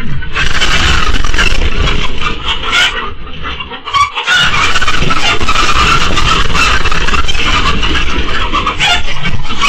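Chickens squawking in alarm and beating their wings as they scatter from a fox in the coop, loud and starting suddenly, with a brief lull about four seconds in.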